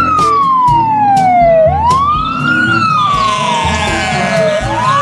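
Fire truck siren sounding a wail: each cycle climbs quickly and then falls slowly, repeating about every three seconds. A steady higher tone joins about three seconds in.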